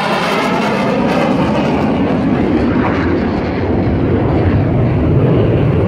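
USAF Thunderbirds F-16 Fighting Falcon jet passing, a loud continuous roar with a sweeping, phasing hiss at first that deepens as the jet goes by.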